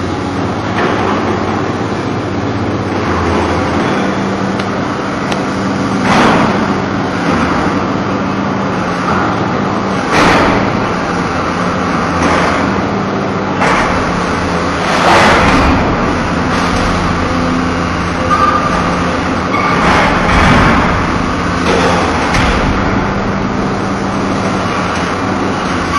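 XGMA crawler excavator's diesel engine running steadily with a constant hum while its rotating timber grapple handles logs, with a louder burst of noise every few seconds.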